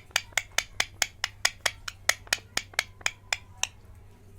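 A rapid, even series of sharp clicks, about five a second, that stops near the end.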